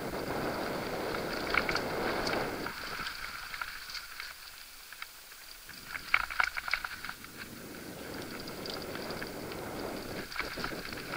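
Mountain bike descending a dirt and rock singletrack, heard from a camera on the handlebars: a steady rushing rumble of the tyres on the trail, with clusters of sharp rattling clicks as the bike crosses rocky patches about two seconds in and again around six seconds in.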